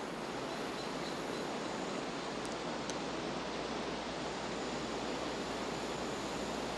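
Steady outdoor ambience: an even, unchanging hiss with no distinct events.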